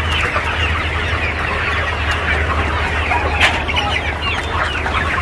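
A large flock of desi-cross (gavran-type) chickens clucking and calling all at once inside a poultry shed, a dense continuous chatter with one sharper call about three and a half seconds in. A steady low hum runs underneath.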